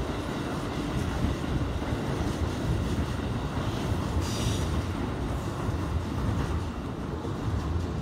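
Keikyu Line electric train running on nearby track, a steady low rumble, with a brief high hiss about four seconds in.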